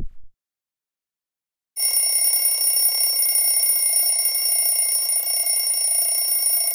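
A BlackBerry mobile phone ringing: a steady, high electronic tone that starts about two seconds in and keeps on without a break.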